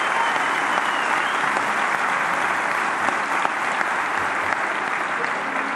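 Crowd applauding steadily, a dense even clapping.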